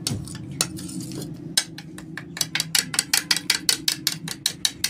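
Metal spoon clicking against a plate as yogurt chutney is stirred, the strokes quickening to about five clicks a second in the second half.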